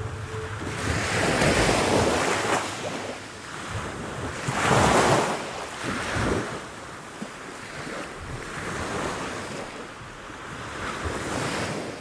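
Small sea waves washing in over rocks and a pebble shore, swelling and ebbing every few seconds, the biggest surge about five seconds in, with wind buffeting the microphone.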